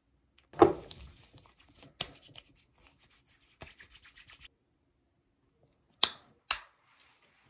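Hands rubbing in hand cream, a run of soft rubbing strokes lasting about four seconds after a loud handling noise from the cream tube near the start. Near the end a cream tube being handled gives two sharp clicks about half a second apart.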